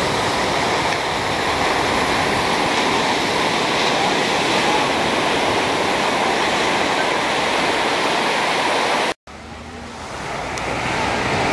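Ocean surf breaking on a sandy beach: a steady, full wash of noise. About nine seconds in it cuts out for an instant, then comes back quieter and swells up again.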